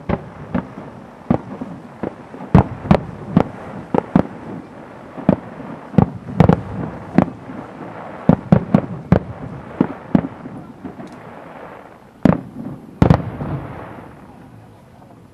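Aerial fireworks shells bursting in a quick, irregular barrage of sharp bangs, several a second at times. Two of the loudest come near the end, and then the bangs die away.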